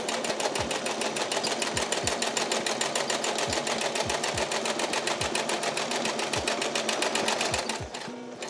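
Small home sewing machine stitching steadily at speed during free-motion quilting, a rapid, even needle clatter that stops briefly near the end.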